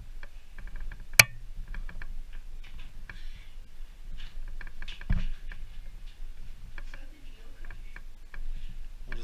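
Scattered small ticks and scuffs of footsteps and handling in a small bare concrete cell, with one sharp click about a second in and a dull thump about five seconds in.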